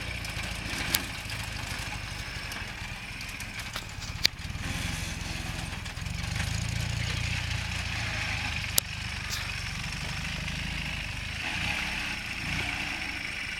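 Ural sidecar motorcycle's flat-twin engine running at low speed, a steady low hum that swells a little partway through. Three sharp clicks or knocks stand out over it.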